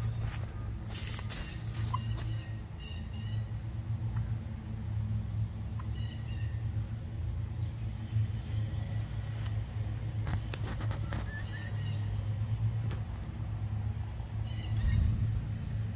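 Wild turkeys giving a few short, soft calls now and then over a steady low rumble.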